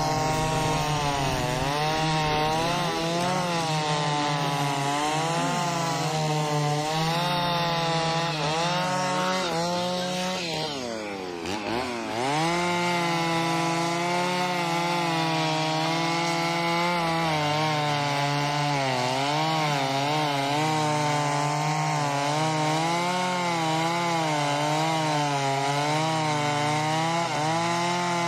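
Two-stroke chainsaw running at high revs, likely cutting wood. Its pitch drops sharply about eleven seconds in, as the throttle eases or the saw bogs in the cut, then climbs back up to full speed.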